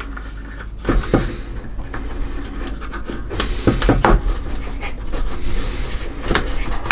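Product packaging and a small case being handled by hand: rustling, with several sharp clicks and knocks about one second in, around three and a half to four seconds, and near the end.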